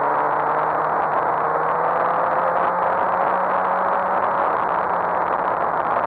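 Suzuki GSX-R1000 K7's inline-four engine pulling under load, its pitch slowly rising, under a heavy rush of wind noise on the microphone.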